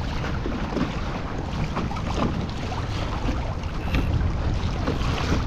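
Wind buffeting the microphone over choppy water lapping against a kayak's hull: a steady rushing noise with a low rumble.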